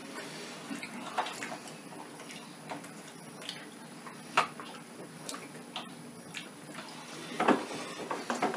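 Quiet, irregular clicks and wet mouth sounds of people chewing cheesecake, with one sharper click about four seconds in.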